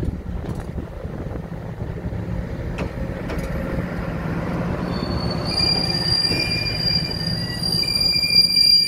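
Two coupled AMG 800 diesel multiple units rolling in with a low engine rumble, and a few sharp knocks in the first few seconds. From about halfway on, a high-pitched squeal of several steady tones rises from the running gear as the train slows.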